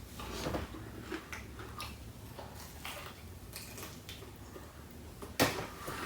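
A person chewing a piece of chicken wing close to the microphone: a scatter of small wet mouth clicks and smacks, with a louder one about five seconds in.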